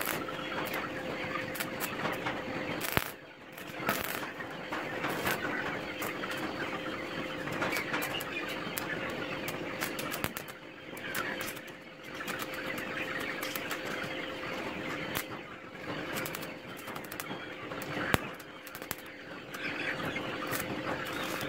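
Electric arc welding on steel rods, a continuous crackle with sharp pops, in several runs broken by brief pauses, over a faint steady hum.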